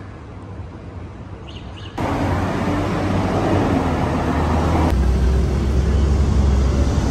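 City street traffic: a steady rumble of cars passing. It gets suddenly louder about two seconds in and heavier in the low end about five seconds in.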